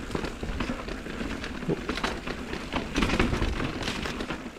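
Mountain bike riding down a dirt and rock trail: tyres rolling over the ground, with frequent knocks and clatters from the bike over rough terrain.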